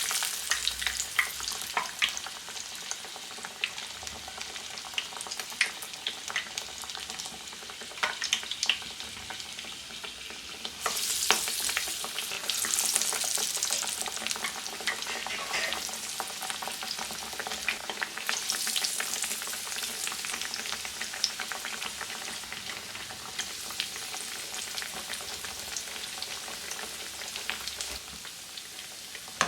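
Masala vada, chana dal fritters, deep-frying in hot oil: a steady sizzling hiss with scattered crackles and pops, which swells louder for a few seconds about eleven seconds in and again a little later.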